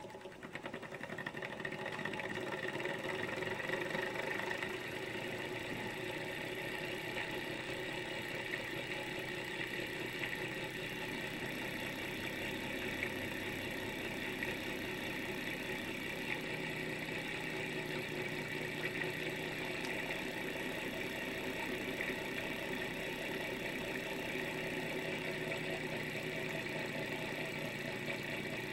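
Small thermoacoustic engine running: a steady mechanical whirr and rattle of its piston, crank and spinning flywheel, which also turns a tiny generator motor. It starts abruptly and builds to a steady level over about two seconds.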